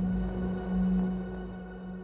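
Background music: a low, sustained synth drone that swells and then slowly fades.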